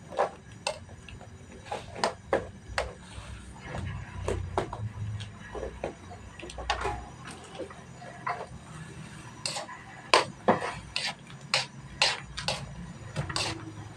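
A metal spoon knocking, clinking and scraping against a wok as instant noodles are turned and broken up in simmering water, in irregular sharp taps that come thicker and louder near the end.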